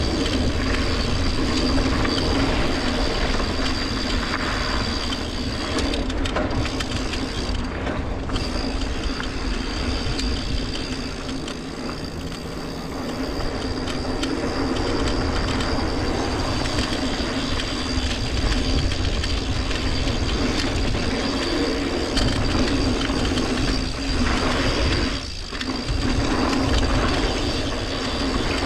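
Yeti SB150 full-suspension mountain bike ridden over dirt singletrack, heard from a handlebar-mounted camera: a continuous rattle of the frame and components over the tyre noise on the trail. It eases briefly twice, about eight seconds in and near the end.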